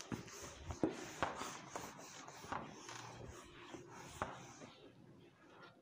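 Whiteboard duster being wiped back and forth across the board to erase it: faint repeated rubbing strokes, about two or three a second, with a few light knocks, stopping near the end.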